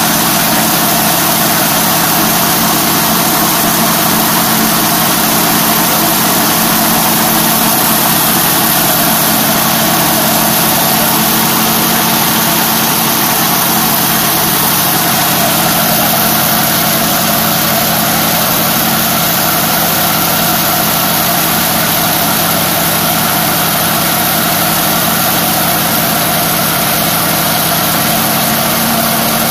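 Tractor engine running at a steady speed, with no rise or fall in revs.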